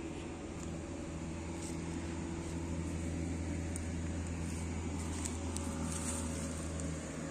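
A steady low mechanical hum, as of a motor running, with a few faint clicks over it.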